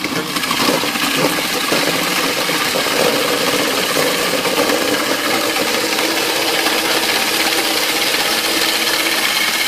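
Electric vegetable chopper running steadily, its motor humming and its blades chopping carrot chunks and cabbage, a little louder from about half a second in.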